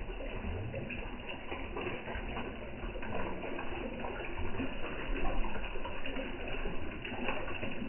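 Pond water splashing and slurping as a crowd of koi feed at the surface on floating pellets: a steady wash of small irregular splashes.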